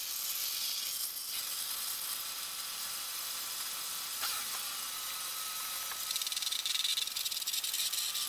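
Engine coolant pouring and splashing out of a disconnected radiator hose on a 2001 Mini Cooper R50 as the cooling system drains: a steady hiss that grows louder and choppier about six seconds in as the stream thickens.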